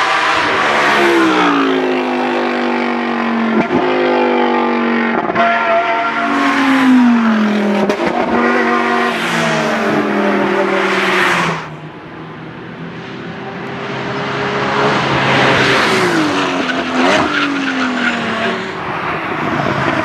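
Sports and racing cars running hard up a hillclimb course, engines climbing in pitch and dropping back through gear changes, with a few short cracks. The sound eases about twelve seconds in, then another car builds up and passes.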